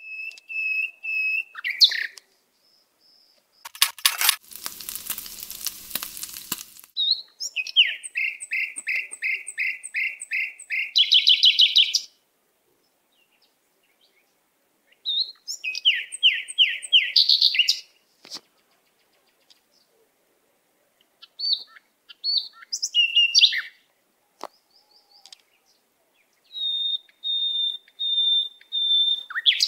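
Birdsong: a songbird singing phrases of quick, evenly repeated chirps and fast trills, with silent gaps between the phrases. A brief rushing hiss sounds about four seconds in.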